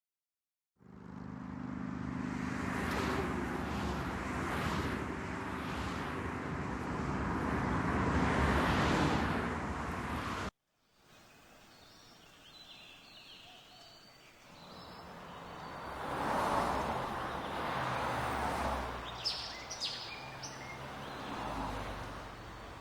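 Outdoor ambience of road traffic: a steady vehicle rumble and hum, then after an abrupt cut a quieter wash of passing vehicles swelling and fading. Short high bird chirps come twice in the second half.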